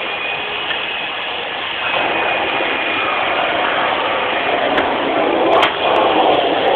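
Vacuum cleaner running with a steady rushing hum. It grows louder about two seconds in, then dips briefly with a click about five and a half seconds in.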